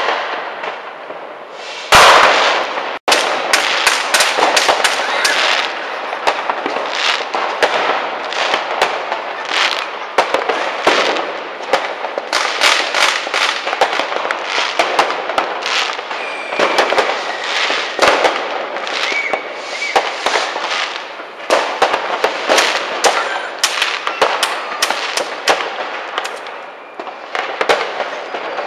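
Many fireworks and firecrackers going off at once in dense, overlapping bangs and crackles, with one loud bang about two seconds in and a couple of short whistles about halfway through.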